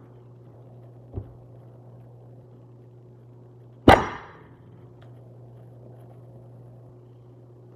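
One sharp, loud knock about four seconds in, with a short ringing tail, and a softer thump about a second in, over a steady low hum.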